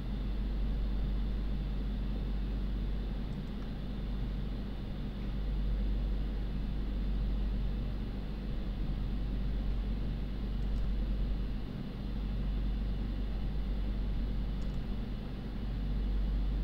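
Steady low rumble and hum with a hiss over it, rising and falling slightly in level, and a few faint clicks.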